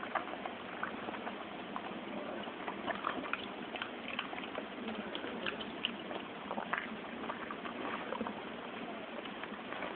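A dog chewing and licking a treat off the floor: irregular wet smacks and small clicks over a steady hiss.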